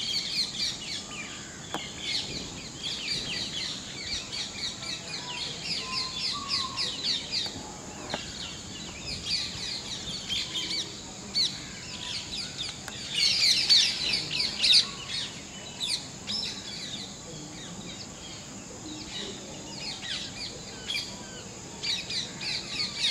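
Birds chirping in a busy, continuous stream of short, quick high chirps, with a louder run of chirps about 13 seconds in.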